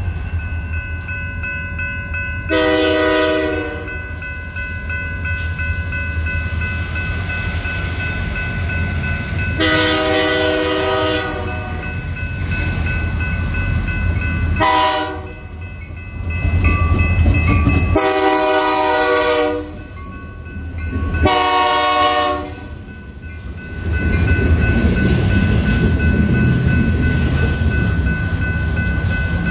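Freight locomotive horn blowing the grade-crossing signal: long, long, short, long, with a final long blast. Under it a steady electronic crossing bell rings and the locomotive engines rumble, and near the end freight cars roll past the crossing.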